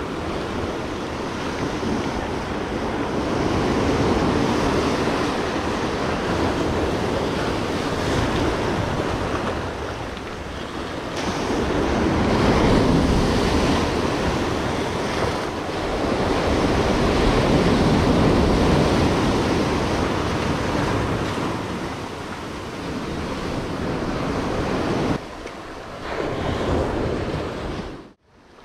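Ocean surf breaking and washing in over a rocky shore, swelling and ebbing in several slow surges, then fading out just before the end.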